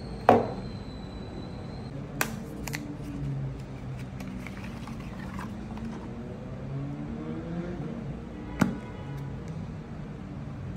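Plastic cosmetic stick and its cardboard box handled on a table: a sharp click just after the start, two lighter clicks about two seconds in, and another sharp click near the end as the stick's cap comes off, over a steady low background.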